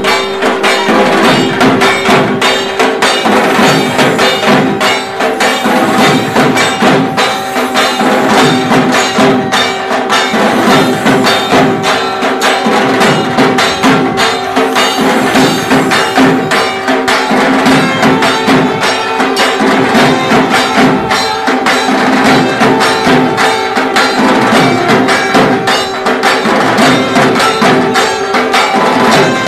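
Devotional music with fast, steady percussion over held tones.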